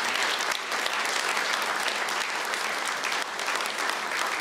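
Audience applauding, a dense, steady clapping from a large seated crowd.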